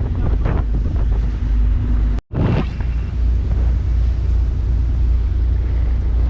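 Strong wind buffeting the microphone on a moving boat, a steady rumble with the boat's engine hum underneath. The sound cuts out abruptly for an instant about two seconds in.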